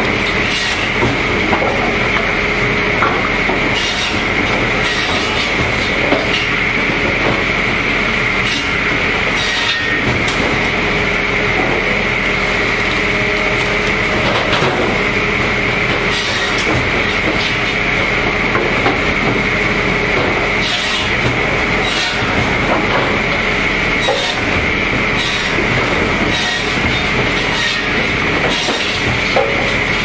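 Firewood processor running steadily, with irregular sharp knocks and clatter of wood every second or two as logs are cut and split and pieces drop onto the conveyor.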